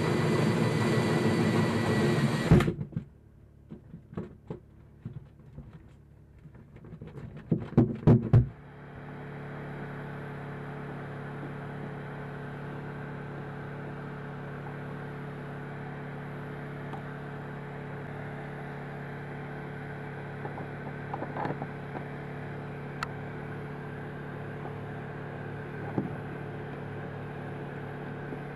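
A power drill spinning a bit in a thru-hull hole in a fiberglass boat hull, cutting off abruptly about two and a half seconds in. Scattered knocks and clicks of tool handling follow, then a steady low hum to the end.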